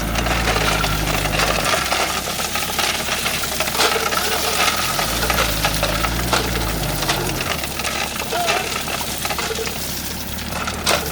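A heavy machine's engine running, swelling deeper and stronger twice for a couple of seconds each time, with sharp metallic clinks and knocks scattered throughout.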